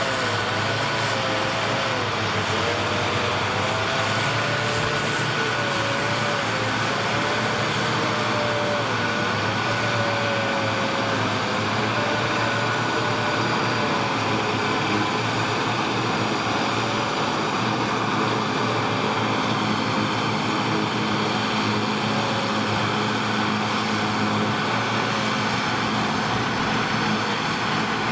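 Ford tractor diesel engines working under load together with a trailed forage harvester chopping and blowing grass: a steady mechanical drone whose pitch wavers slightly through the first half, with a thin high whine over it.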